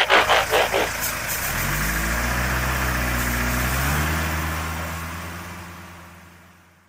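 Truck engine sound effect: a quick rattling run of mechanical clicks for about the first second, then an engine picking up to a steady run that fades away as the truck drives off.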